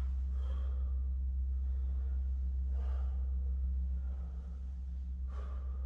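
A man's heavy breaths under exertion during a bodyweight floor exercise: three audible breaths about two and a half seconds apart, over a steady low hum.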